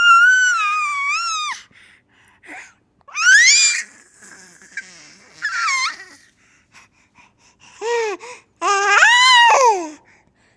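A series of high-pitched, wavering vocal cries: a long one at the start, others around three and five seconds in, and a short call followed by a long one near the end, each gliding up and then down in pitch.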